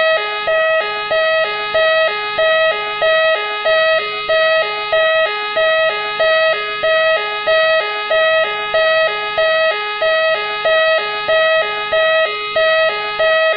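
Machine X police-car siren sounding continuously as a two-tone siren, alternating a higher and a lower note about one and a half times a second over a steady higher tone.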